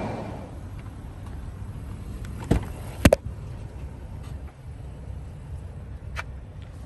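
Someone getting into a parked car: two sharp knocks about half a second apart, the second the louder, like the car door being handled and shut, then a lighter click near the end, over a low steady rumble.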